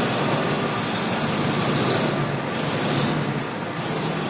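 Steady machinery noise with a low hum, no distinct knocks or starts.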